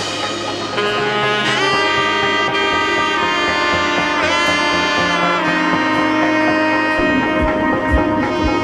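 Background music led by a saxophone-like horn playing sustained notes with bends and vibrato over a light beat.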